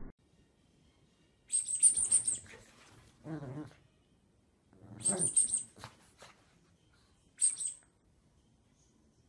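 A squeaky toy squeezed three times, giving high sharp squeaks about a second and a half in, about five seconds in, and a shorter one near the end. A brief low vocal sound comes about three seconds in.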